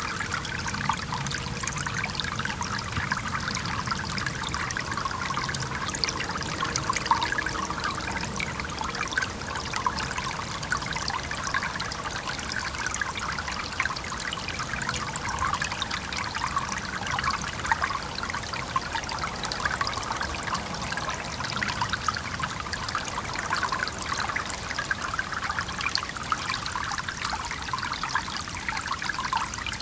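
Small stream trickling and babbling over stones, a steady, even flow with a dense bubbling texture. Faint low traffic rumble in the background.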